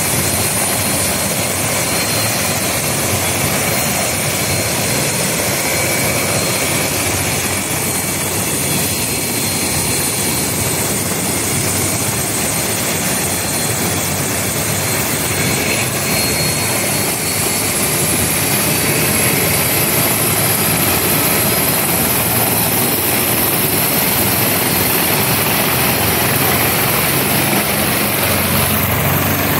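Light turbine helicopter running on the ground with its main rotor turning, a steady loud rotor and engine noise with a high turbine whine. Over the second half the whine rises slowly in pitch and the noise grows a little louder.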